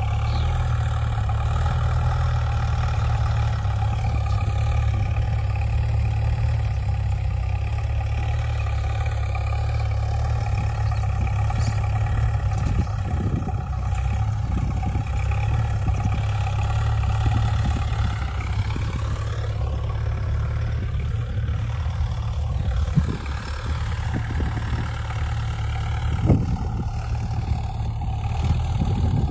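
Dongfeng mini tractors' diesel engines running steadily under load while tilling soil, with a strong low hum. Their pitch wavers about two-thirds of the way through, and a few short knocks come near the end.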